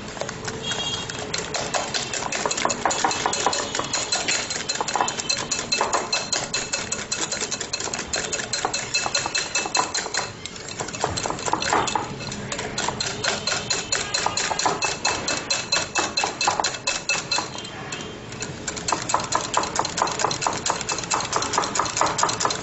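Wire whisk beating malpua batter in a glass bowl, the wire loops clicking rapidly against the glass, with brief lulls about ten and eighteen seconds in.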